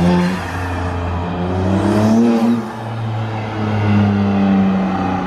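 BMW M4 G82's S58 twin-turbo inline-six, fitted with aftermarket downpipes, midpipe and front-mount intakes and run in Efficient mode with the exhaust valves closed, accelerating hard past. The engine note climbs in pitch with the intake sound prominent, with a sharp dip in loudness about two and a half seconds in before it climbs again.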